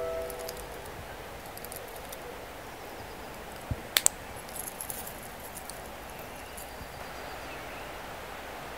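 A handgun being handled: a low knock and then two sharp metallic clicks about four seconds in, with a few fainter ticks just after. These sit over the steady rush of a creek, and the tail of the film's music dies away at the very start.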